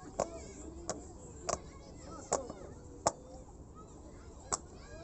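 Bubbles of a silicone pop-it fidget toy being pressed from its loud side: six sharp pops, unevenly spaced, most under a second apart.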